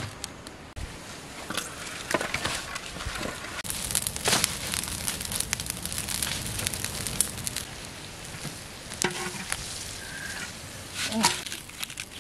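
Fire of dry twigs and leaves crackling as it burns, full of sharp snaps and pops. A louder knock at the start and a burst of rustling and handling near the end.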